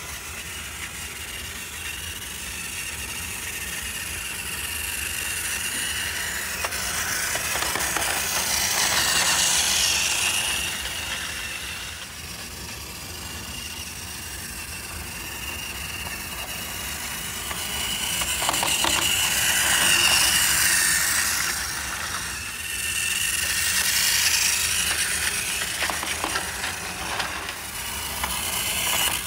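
Battery-powered Tomy toy trains whirring along plastic track, a steady high motor whine with the rattle of wheels over the track joints. The sound swells and fades several times as the trains run close by and away.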